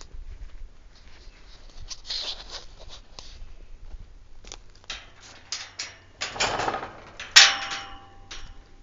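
Scattered knocks and rustling, with one sharp metallic clank about seven seconds in that rings on briefly.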